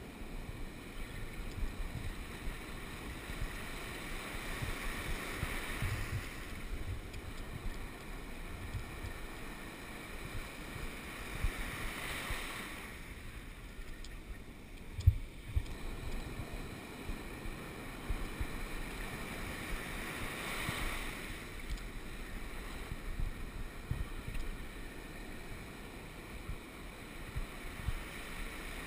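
Ocean surf breaking and washing up the beach, swelling in surges every several seconds, with wind buffeting the microphone. One sharp knock about halfway through.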